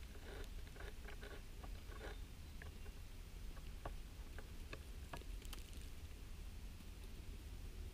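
Faint, irregular soft patters and ticks: a quick run of them in the first two seconds, then single sharp ticks spaced out, over a low steady rumble.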